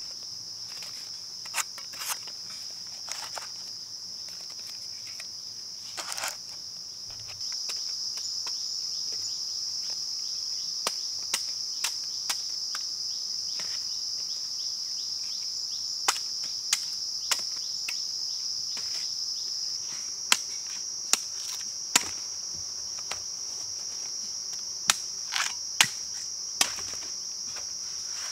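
Steady high-pitched insect drone. Over it come scattered sharp knocks, in groups of two or three from midway on, as bamboo shoots are handled and cut with a machete.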